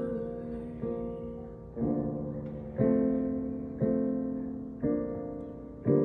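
Piano accompaniment with no voice: chords struck about once a second, each ringing out and fading before the next.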